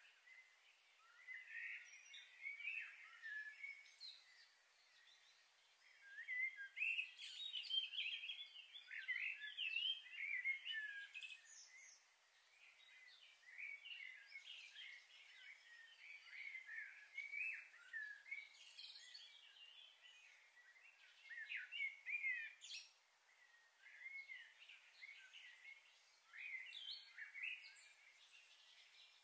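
Small birds chirping and calling, many short quick notes sliding in pitch, faint with busier stretches partway through.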